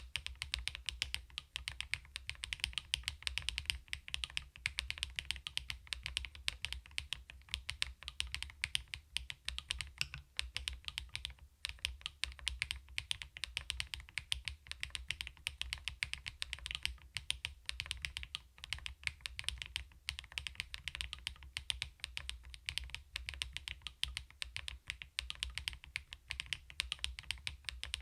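Fast, continuous typing on a CoolKiller VIVID67 full-aluminium mechanical keyboard, with many quick key clicks a second in a steady stream.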